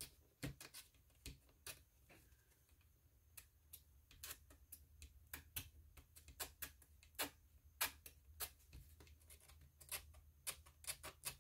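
Faint, irregular clicks and ticks, about two to three a second, of an opened scissor blade scraping excess cured resin off the back of a small resin earring, leaving scratches in it.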